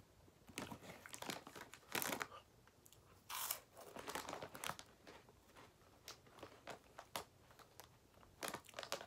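A plastic snack bag of Herr's Jalapeño Popper cheese curls crinkling as it is handled, in irregular rustling bursts, loudest about two and three and a half seconds in.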